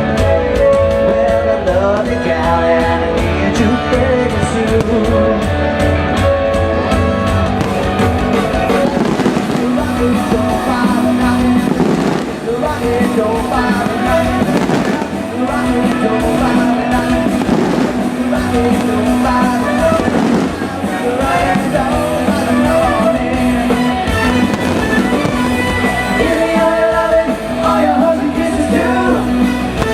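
Live rock band playing, loud and steady, with fireworks bursting over the music several times in the middle.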